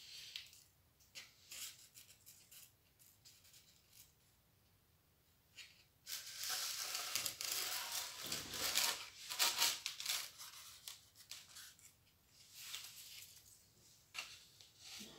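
Cardboard sheets and paper cut-out templates being handled and shifted: light rustles and clicks at first, then about six seconds in a dense stretch of paper rustling and cardboard scraping that lasts about five seconds and trails off into scattered rustles.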